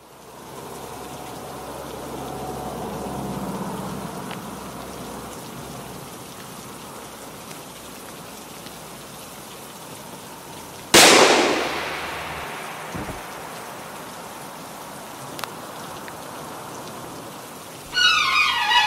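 A single loud gunshot about eleven seconds in, with a decaying echo, over a steady background hiss. Orchestral string music begins near the end.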